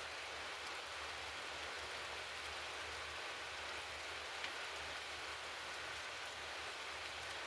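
A steady, even hiss, with a single faint tick about four and a half seconds in.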